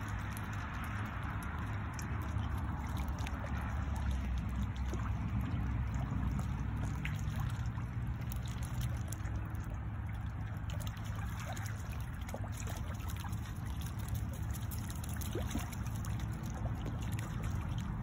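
Mallards dabbling and paddling in shallow water: a continuous trickling and splashing with many small clicks, over a steady low rumble.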